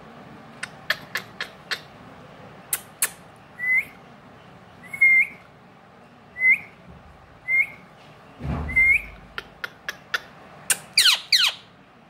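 Indian ringneck parakeet calling: a run of sharp clicks, then five short rising whistles about a second apart, and near the end a quick burst of squawks sliding downward. A dull thump comes about eight and a half seconds in.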